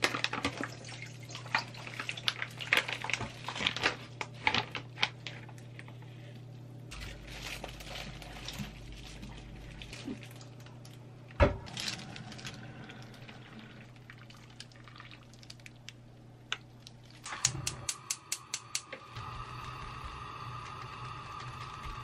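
Konjac noodles and their water tipped from a bag into a stainless steel sieve over a steel bowl, with splashing water and many sharp clicks. A single loud knock comes partway through, then a quick run of clicks, and near the end a steady hiss with a faint hum sets in.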